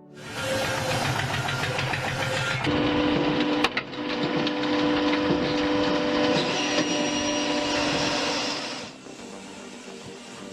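Loud wood-processing machinery running with a steady hum and clatter; it changes pitch about two and a half seconds in, gives a sharp click near four seconds, and drops away about nine seconds in.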